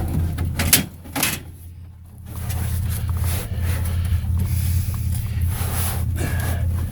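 Two sharp knocks about a second in as a salvaged item is lifted and set into a van seat, over a steady low hum.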